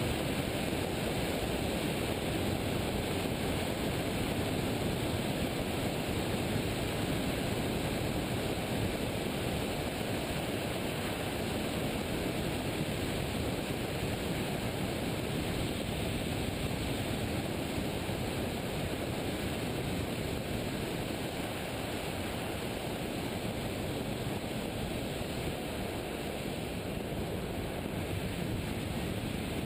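Steady rush of wind over the microphone of a camera mounted on a hang glider in flight, the noise of the glider's airspeed.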